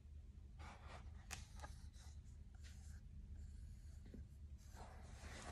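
Faint rustling and a few light clicks of a large hardcover picture book being handled and held up, with its pages moving, over a low steady hum.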